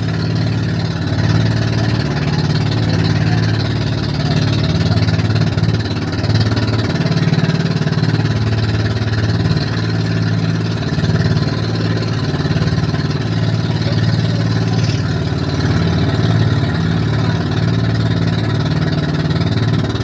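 A motorized outrigger boat's engine runs steadily, with a wavering low hum, over a constant rush of wind and choppy water.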